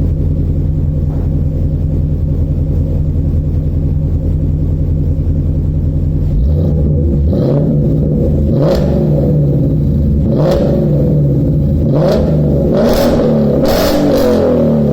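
Ford Mustang GT V8 through a Borla Touring exhaust, idling steadily with a deep, even burble. About six and a half seconds in, it gets louder and the engine note starts rising and falling as it is revved or driven, with several short sharp cracks in the last half.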